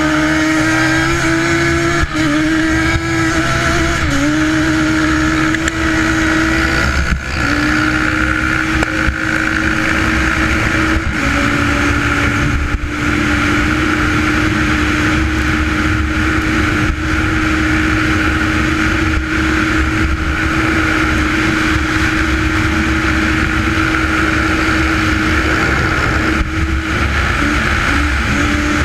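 Slightly modified Yamaha Banshee 350 twin-cylinder two-stroke engine pulling hard at full throttle. Its pitch drops and climbs back at each upshift in the first ten seconds or so, then it holds high and steady, with heavy wind rush on the rider-mounted microphone. The engine note breaks briefly a few times near the end.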